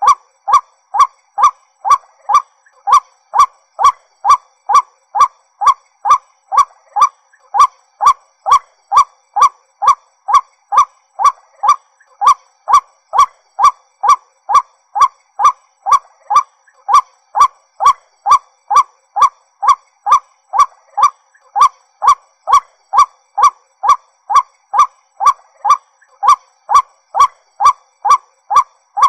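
White-breasted waterhen calling: one short call repeated steadily, about twice a second.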